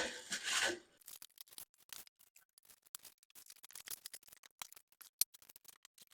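Packaging and parts being handled while unpacking a box: a brief rustle at the start, then faint scattered clicks and scrapes, with one sharper tick about five seconds in.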